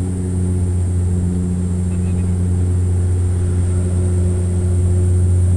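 Steady drone of an airliner's engines heard inside the passenger cabin: a strong low hum with a thin, steady high whine above it.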